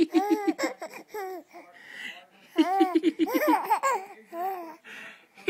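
Baby laughing in two bouts of rapid, pulsing laughs, one at the start and one about two and a half seconds in, with breathy intakes between them.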